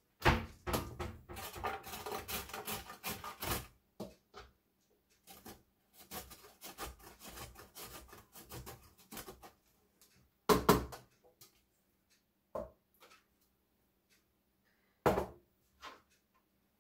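Carrot rubbed up and down a metal box grater on a cutting board: a fast run of rasping strokes, a short pause, then a second, quieter run. A few sharp separate knocks follow in the last seconds.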